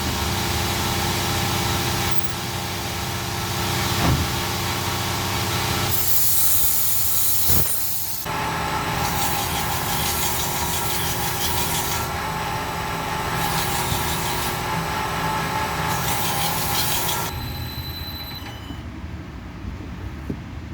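Electric knife-sharpening machine running, with a knife blade drawn across the abrasive in repeated grinding passes of a few seconds each; the grinding stops and the machine quietens near the end.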